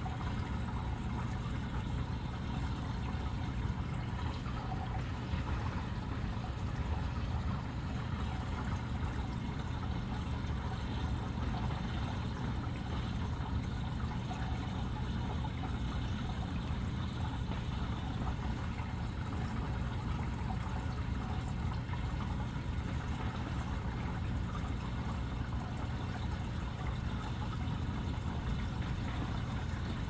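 Vortex water fountain running: water swirling and trickling steadily in a glass jar, with a steady low hum underneath.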